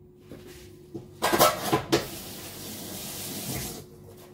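Kitchen utensils clattering briefly, then a steady hiss of running tap water for about two seconds that cuts off near the end, as hands are washed before mixing dough by hand.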